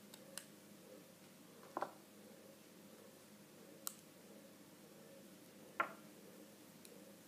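Small, sharp clicks of elastic bands and fingers on a clear plastic four-peg Monster Tail rubber-band loom as the bands are put on the pegs. There are about four faint clicks a second or two apart, one of them doubled, over a low room hiss.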